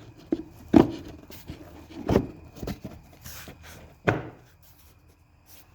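New engine air filter being seated in its plastic airbox and the housing fitted back together: rubbing and three sharp knocks over about three seconds.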